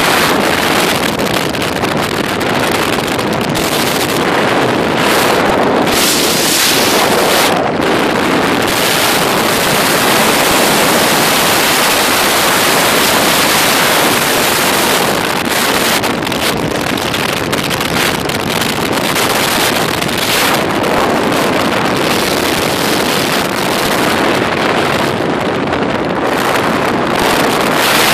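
Loud rush of wind and road noise from a car driving along a highway, the wind buffeting the phone's microphone in gusts.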